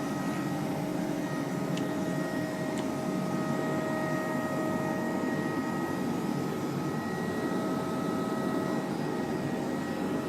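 iClebo Omega robot vacuum running in turbo mode, which it switches on automatically on carpet: a steady suction hum with a steady high whine.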